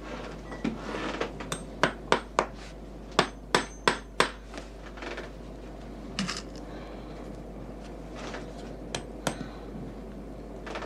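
Small cobbler's hammer tapping nails through a leather insole into a shoe last, tacking the insole in place. About nine sharp taps come in quick succession in the first few seconds, then a few scattered taps.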